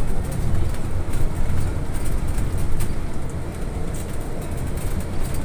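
Inside an electric trolleybus travelling at speed: a steady low rumble of tyres and road, with scattered light clicks and rattles from the bodywork.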